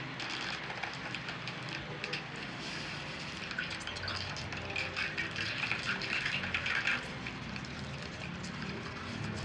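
Crinkling and clicking of candy wrappers and plastic Hubba Bubba tape-gum cases being handled and opened, busiest from about four to seven seconds in.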